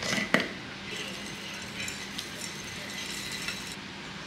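Granola poured from a glass jar into a bowl of berries: a couple of glassy clinks near the start, then a light rattling patter of falling clusters that stops shortly before the end.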